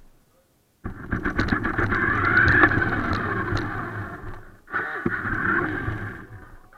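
Radio-controlled toy car's electric drive motor and gears whining as it drives over a tile floor, with clicking and rattling. It starts abruptly about a second in, the whine rising and then falling, cuts out briefly about two-thirds of the way through, and runs again until just before the end.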